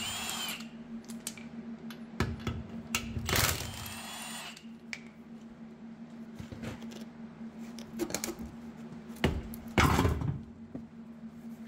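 Milwaukee cordless impact wrench spinning lug nuts off a steel wheel in two short bursts, with metallic clicks of the nuts. Near the end a heavier thump comes as the wheel is pulled off the hub.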